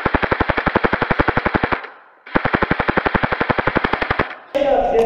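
Airsoft gun firing on full auto in two long bursts of about two seconds each, with a short pause between them, at roughly fifteen shots a second.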